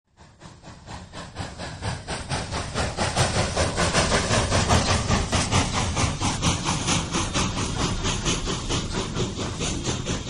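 Steam locomotive running with its exhaust chuffing in a steady quick rhythm of about four or five beats a second. It fades in over the first few seconds, then slowly dies away.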